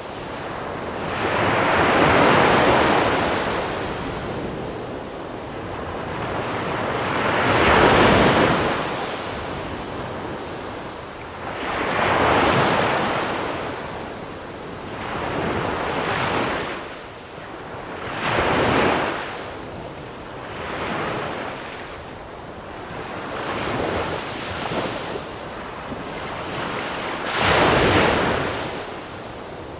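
Small waves breaking on a pebble shore and washing back, about six swells, the strongest about 2, 8, 12 and 28 seconds in, with a little wind on the microphone.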